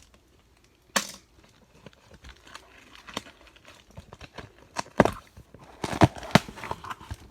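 A cardboard box being opened and handled: crinkling and tearing of the packaging with a few sharp knocks and taps, the loudest about a second in and around five to six and a half seconds in.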